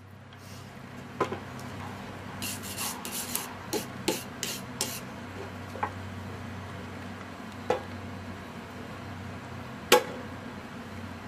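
Rubbing strokes as the magnetic base of a portable magnetic drill is wiped clean, with a few light knocks. Near the end comes a single sharp knock as the drill rig's magnetic base is set down on a steel channel beam. A steady low hum runs underneath.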